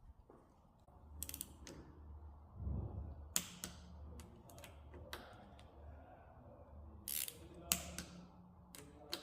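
Scattered sharp clicks and knocks of bike parts and tools being handled during a mountain bike build, over a faint low hum.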